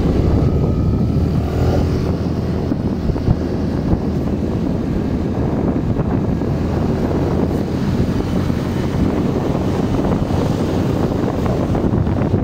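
Steady wind rush on the microphone of a moving motorcycle, with the motorcycle's engine and road noise running underneath.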